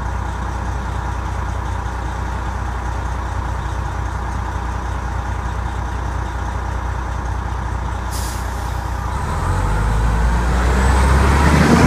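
MCI D4000 coach's diesel engine idling steadily, with a short hiss of air from the brakes about eight seconds in. The engine then grows louder and rises in pitch, with a thin rising whine, as the coach pulls away.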